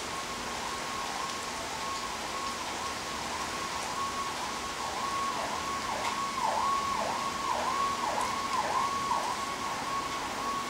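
Emergency vehicle siren: a steady tone that begins to swoop down and back up about twice a second, louder in the middle and settling back to a steady tone near the end. Steady rain hisses underneath.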